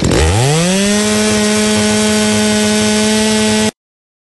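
Stihl chainsaw engine revving up from low to full throttle, its pitch rising for about a second and then held steady at high revs. It cuts off suddenly near the end.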